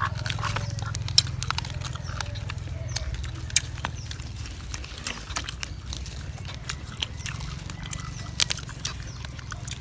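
Eating and handling crispy deep-fried pork belly wrapped in lettuce leaves: scattered crisp crunches, crackles and rustles, over a steady low hum.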